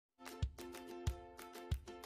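Background music with a steady beat: a low thump about every two-thirds of a second under held chords.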